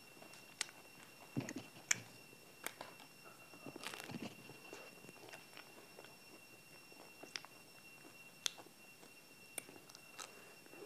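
Close-up eating sounds of a chocolate-coated ice cream bar: scattered crisp bites and crackles of the chocolate shell and wet mouth noises, at irregular intervals. A faint steady high whine runs underneath.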